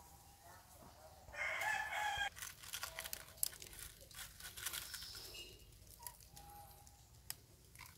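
A rooster crowing once, loudly, about a second and a half in, followed by light crackling rustles of dry leaves.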